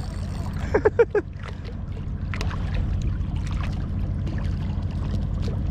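Steady low wind rumble on the microphone. About a second in there is a short voice-like sound, followed by scattered light clicks and taps.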